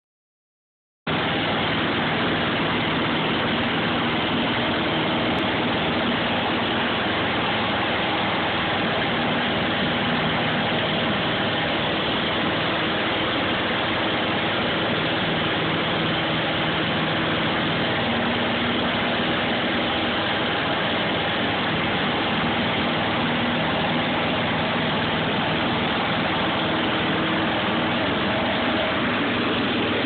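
Riding lawn mower engine running steadily under the operator, a constant drone with a few steady tones.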